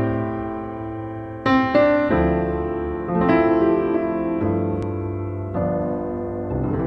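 Piano music: slow chords struck every second or so, each left to ring and fade.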